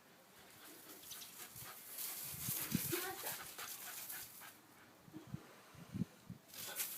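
Shiba Inu snapping at soap bubbles: a few soft clicks and thumps, with a short whine about three seconds in.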